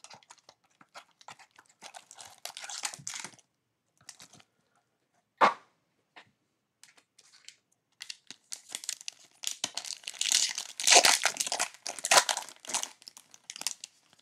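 Wrapping of a sealed trading-card pack being torn and crinkled open, in crackly spurts with a lull in the middle and a single sharp click about five and a half seconds in.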